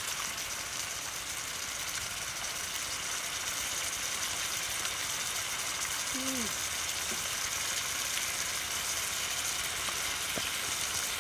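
Steady sizzling hiss of beef, vegetables and broth cooking in a large wok, with a brief murmured vocal sound about six seconds in.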